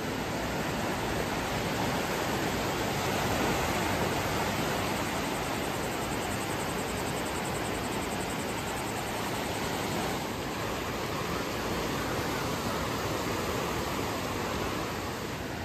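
Steady rush of surf: small waves breaking and washing up on a sandy beach.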